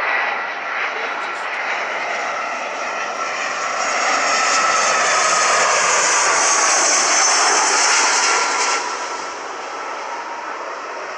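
An airliner's engines passing close by: a loud rushing noise with a high whine that builds to a peak in the middle, then falls away near the end.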